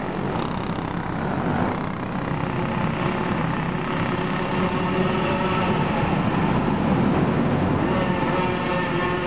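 Several go-kart engines running at racing speed together, their engine notes overlapping into a steady drone.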